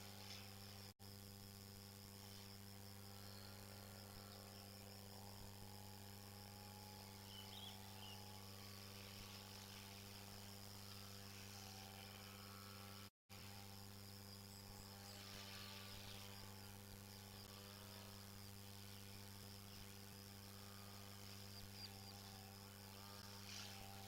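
Near silence: a faint steady low hum under a faint, evenly pulsing high chirring like insects, with two brief dropouts.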